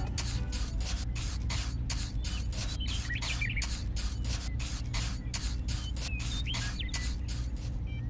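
Miniature trowel scraping and smoothing wet cement in quick, even strokes, about four a second, over a steady low hum.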